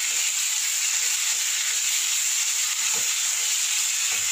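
Marinated chicken pieces sizzling as they fry in a spoonful of coconut oil in a nonstick kadai, with a steady hiss. A wooden spatula stirs and scrapes the pan now and then, giving a few faint knocks.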